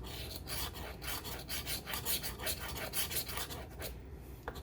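A coin or scraper rasping rapidly across a scratch-off lottery ticket, scraping off the latex coating in quick repeated strokes.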